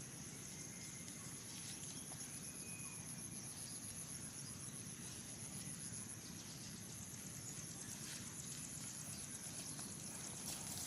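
Faint, steady high-pitched insect trilling, with a quick even pulse, over quiet rural background hiss.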